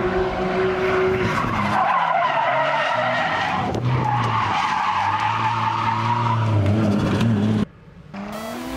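Nissan Skyline R33 drifting: tyres squealing in a long skid over the steady note of its RB25 straight-six. The sound cuts off abruptly near the end, and electronic music begins.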